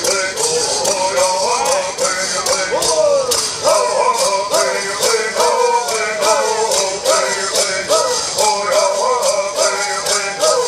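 Southern California bird song: several singers' voices together over gourd rattles shaken in a steady beat, about three shakes a second.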